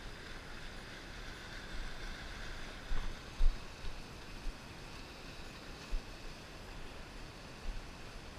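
Stream water rushing over rocks as a steady hiss, with wind buffeting the microphone in low gusts. A couple of short knocks from the camera wearer's movement land about three seconds in.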